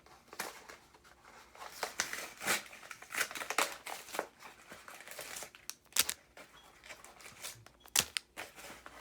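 Foil Pokémon booster packs being torn open and handled, with irregular crinkling and crackling of the wrappers and a few sharp snaps.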